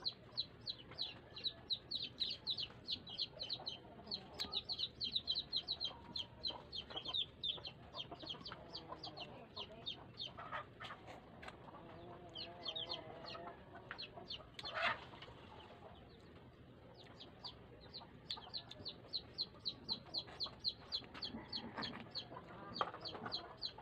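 Chickens calling: fast trains of short high-pitched chirps, several a second and lasting a few seconds at a time, with lower clucking calls in between.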